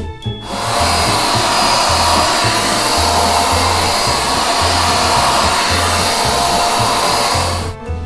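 Hoover handheld upholstery vacuum cleaner running with a steady whining motor hiss. It starts about half a second in and cuts off near the end.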